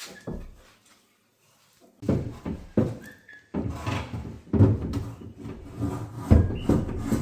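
Irregular wooden knocks, bumps and scraping from work inside a kitchen sink cabinet, with a short squeak about three seconds in.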